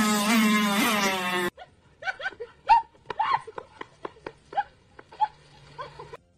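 A small chihuahua-type dog snarling with a loud, drawn-out pitched cry that cuts off suddenly about a second and a half in. It is followed by a run of short, quieter calls, two or three a second.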